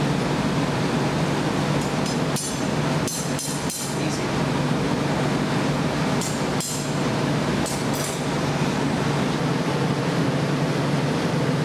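Steady roar of a glassblowing hot shop's furnace and glory-hole burners, with a few brief light clinks of tools or glass a couple of seconds in and again around the middle.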